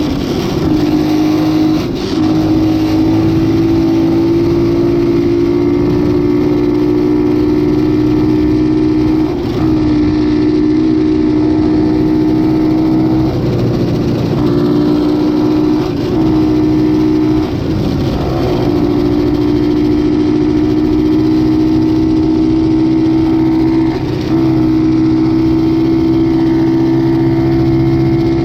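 X15 super pocket bike engine running under way at steady high revs, its held whine briefly dropping off and picking up again about six times as the throttle is eased and reopened.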